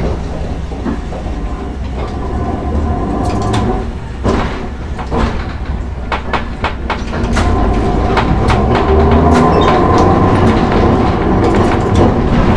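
Hankai Tramway Mo 161 tram under way, its nose-suspended traction motors and gears giving a steady low rumble with a held whine, getting louder about halfway through, while the wheels click sharply over rail joints and crossings.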